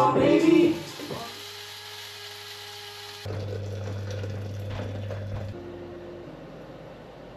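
Electric tattoo machine running with a steady buzz, which turns into a louder, lower hum about three seconds in.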